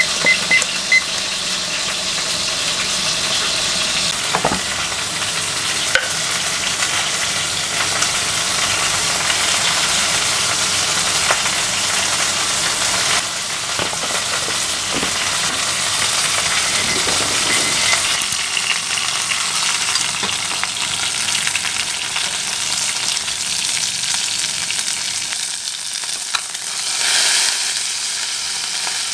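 Food frying in a pan with a steady sizzle, and a few light clicks of a utensil against the pan. The sizzle swells briefly near the end.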